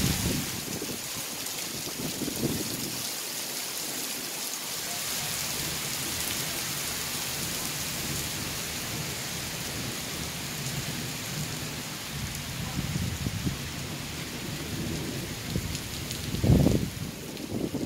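Steady heavy rain hissing, with low rumbles of thunder coming and going. A short, louder low thump near the end.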